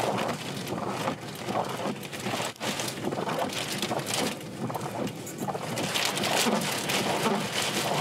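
Strong, gusting wind and driving rain from a tornado crossing the road close by, buffeting the microphone. The noise swells and drops with each gust, easing briefly about two and a half seconds in.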